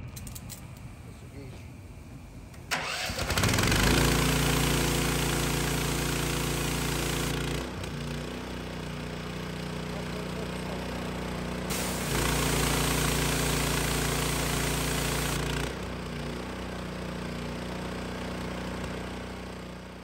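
Gas-engine pressure washer running while its spray gun is triggered on and off. Starting about three seconds in, a loud, steady water-jet hiss is heard over the engine, twice. Each time the trigger is released the spray stops, the sound drops and the engine note shifts as the unloader sends the pump into bypass.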